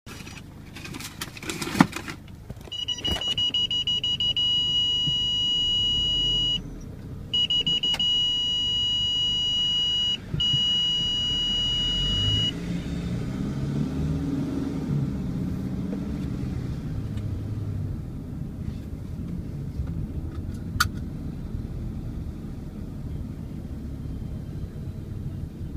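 Car cabin while driving: a sharp knock about two seconds in, then a loud, steady, high-pitched electronic warning tone for about ten seconds, broken twice for a moment, over the low engine and road rumble. After the tone stops, the engine note rises and falls, then settles into a steady road rumble.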